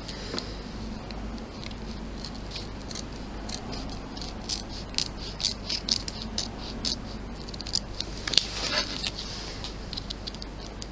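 Small appliqué scissors snipping in short quick cuts, trimming the edge of a stitched window in the hooped material; the clicks come thickest in the middle.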